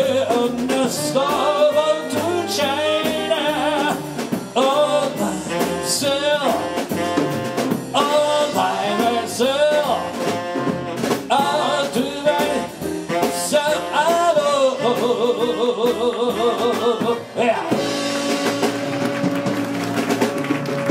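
Jazz big band with a male vocalist singing over saxophones, brass, piano and drums, winding down to a long held final chord near the end. Applause starts under the last chord.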